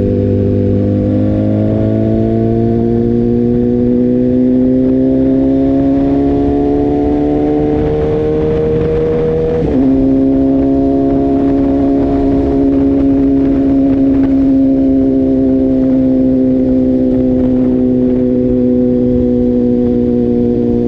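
2018 BMW S1000R's inline-four engine through a full Akrapovic exhaust, pulling in gear with its pitch climbing steadily. About ten seconds in the pitch drops suddenly as it shifts up, then it holds a steady note that sinks slowly as the bike cruises.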